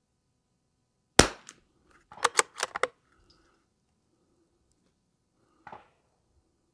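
A single shot from a Lithgow LA101 .22 LR bolt-action rifle firing Lapua Midas Plus: one sharp crack about a second in. A second later comes a quick run of four or five metallic clicks as the bolt is worked to eject the case and chamber the next round, and there is one fainter click near the end.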